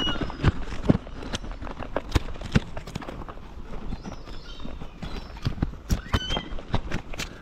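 Gulls pecking close by: an irregular run of hard beak taps and knocks, with a short high squeaky call at the start and another about six seconds in.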